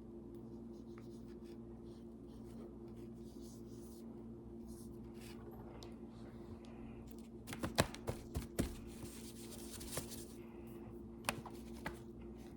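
Small clicks and taps of painting things being handled at a table, a quick cluster about three-quarters of the way in and a few more near the end, over a faint steady hum.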